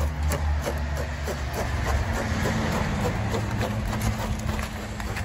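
Corrugated plastic electrical conduit being pushed and twisted through the cells of hollow clay bricks, making repeated short scraping clicks as its ribs catch on the brick, over a steady low machine hum.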